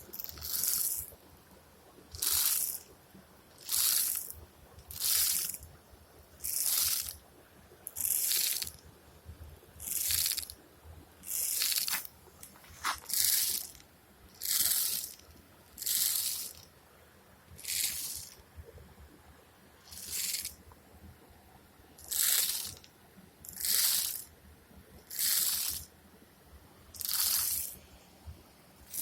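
A mass of termites shaking in unison and making a rhythmic rustling hiss. Each pulse lasts about half a second and they come about every one and a half seconds: the colony's collective alarm shaking.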